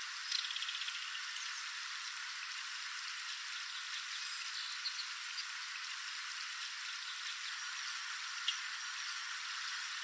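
Belted kingfisher giving a short, dry rattle call about a third of a second in, a quick run of clicks that fades within a second. Under it is a steady hiss, with a few faint ticks later on.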